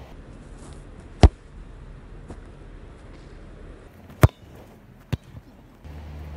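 A football being struck hard by a kicker's boot: two sharp, loud kicks about three seconds apart, with a fainter thud about a second after the second.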